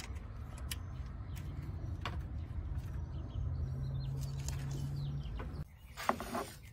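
Outdoor background: a low rumble with faint, scattered bird chirps and small clicks, and a steady low hum for a couple of seconds in the middle. It drops away abruptly about five and a half seconds in.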